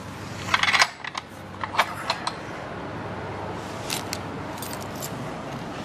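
Sharp metal clicks and clinks as a steel bearing insert is levered into a pillow block housing with a pipe bar: a quick cluster about half a second in, a few scattered clicks after it, and two or three more near the four-second mark.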